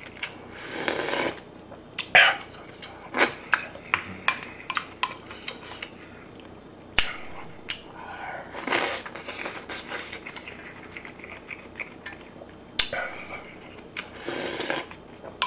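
Eating sounds: a wooden spoon clicking and scraping against a metal pot and a rice bowl, with chewing between. Three loud slurps of kimchi stew broth come near the start, about halfway through, and near the end.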